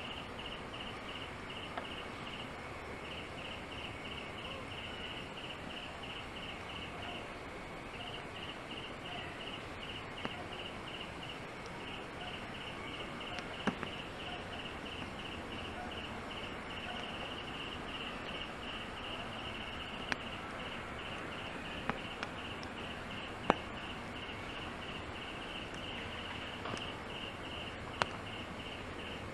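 Insects chirping in a steady pulsing rhythm, about four pulses a second with a few short breaks, over a background hiss. Several sharp clicks or taps stand out here and there.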